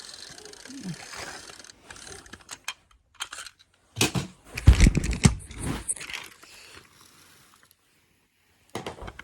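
Toy cars handled by hand: small plastic clicks and taps, with a cluster of loud knocks and bumps about four to six seconds in.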